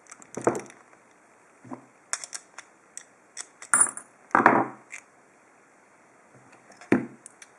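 Small metal lock parts and tools clicking and clinking as an American 5200 padlock is taken apart, with three louder knocks spread through.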